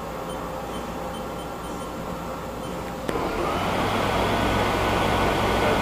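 Haas SL-30 CNC lathe humming steadily, then about three seconds in its spindle starts and the 10-inch three-jaw chuck spins up. The sound jumps to a louder whirring rush with a whine that rises briefly and then holds steady.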